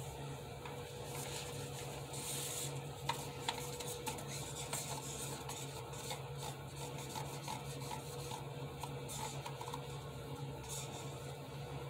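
Faint rustling and a few light clicks as a gloved hand handles a plastic cup, pouring acrylic paint onto a canvas's edges, over a steady low hum. The clicks are clearest about three to five seconds in.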